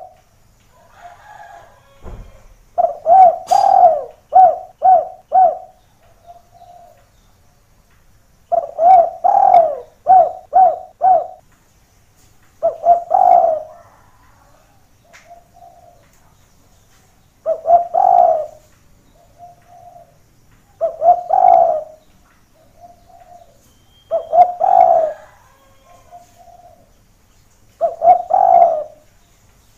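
Spotted dove cooing repeatedly. It gives quick runs of four or five coos at first, then single drawn-out coo phrases every three or four seconds, with softer coos in between.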